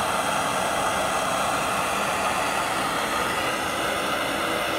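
Handheld gas soldering torch burning with a steady, loud hiss as its blue flame heats a copper pipe fitting for a sweat joint; the hiss cuts off suddenly at the end.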